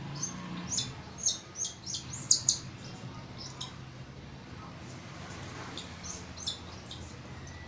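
Baby cockatiel chicks giving high-pitched begging chirps while being hand-fed: a quick run of short calls in the first few seconds and a few more near the end.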